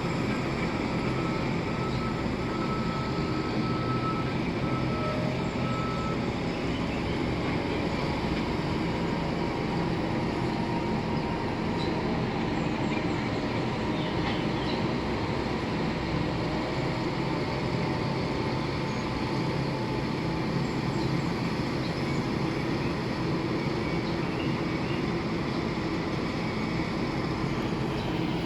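Heavy construction machinery engines running steadily, a continuous even rumble.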